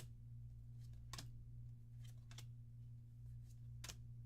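Near silence: a steady low electrical hum with a few faint, brief clicks.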